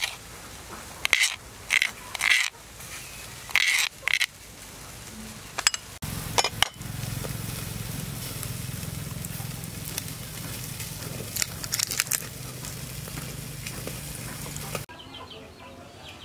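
Metal knife blade scraping and stirring thick pounded herb paste in a glass bowl, a handful of short sharp scrapes in the first four seconds and a few more later, over a steady low hum from about six seconds in that stops suddenly near the end.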